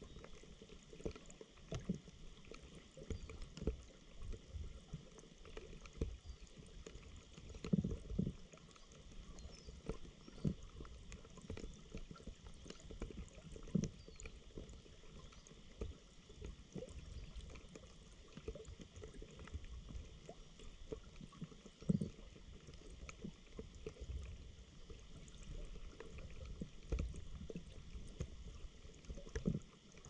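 Muffled underwater sound of shallow moving water: irregular low thumps and gurgles of water against the submerged camera, with louder knocks about eight seconds and about 22 seconds in.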